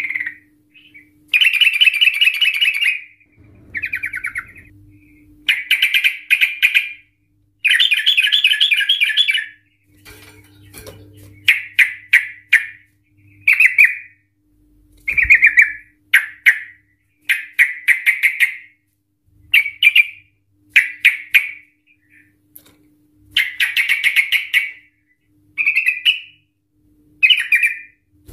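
Yellow-vented bulbul singing in short, fast rolling phrases near 2–3 kHz, each about a second long and repeated every second or two. A faint steady hum runs underneath.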